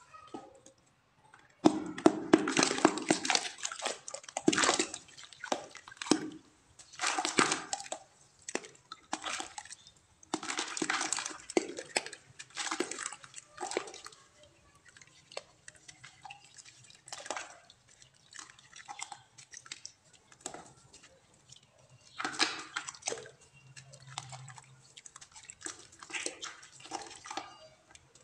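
Lumps of dry clay dunked and crumbled by hand in a bucket of muddy water: irregular bursts of splashing and dripping mixed with gritty crumbling.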